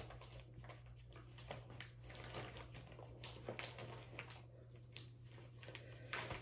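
Faint, irregular rustling of a shower cap being pulled on and adjusted by hand over braided hair, over a steady low hum.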